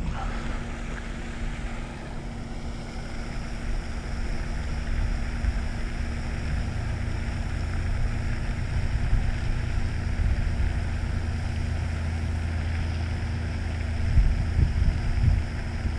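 Wind rumbling against the microphone, over a steady low hum and hiss. A few stronger gusts come near the end.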